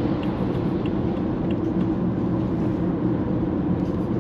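Steady in-cabin road noise of a BMW E90 2.0 N47 diesel with automatic gearbox cruising at speed: tyre and road rumble with the engine running underneath.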